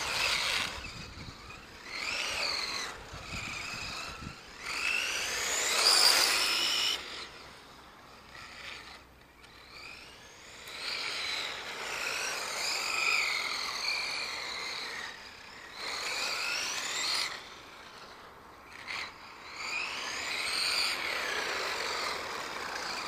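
Motors and drivetrains of 3D-printed radio-controlled cars whining as they speed up and slow down, the pitch rising and falling. The whine comes in repeated runs of a few seconds each, with quieter gaps between them.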